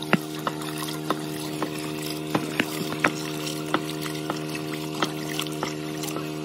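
Water pouring from a pipe into a metal pot of rice while the rice is rubbed and rinsed by hand, with irregular sharp splashes and clinks. A steady hum runs underneath.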